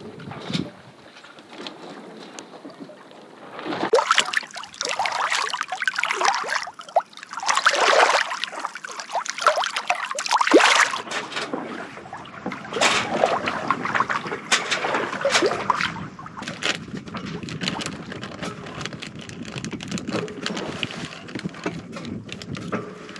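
Water rushing and splashing along the hull of a sailboat under way, in irregular surges that are loudest in the first half, then settling to a quieter steady wash.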